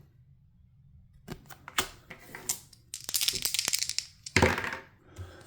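Dice for a tabletop baseball game being handled and rolled: a few scattered clicks, then a quick rattling run of clicks for about a second, ending in a louder clatter as they land.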